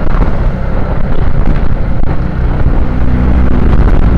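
Motorcycle engine running at low road speed, with wind rumbling on the microphone and road noise.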